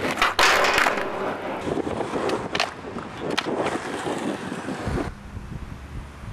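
Skateboard wheels rolling on rough ground with sharp wooden clacks of the board popping and landing: the loudest about half a second in, more near two and a half and three and a half seconds. After about five seconds it gives way to a quieter outdoor rumble.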